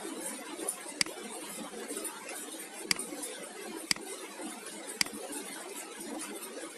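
Steady hiss with four sharp clicks spaced about one to two seconds apart.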